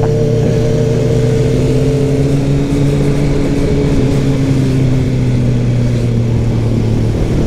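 Kawasaki Ninja ZX-10R's inline-four engine running at a steady, moderate speed under way, its pitch holding almost level, with wind rumble on the microphone.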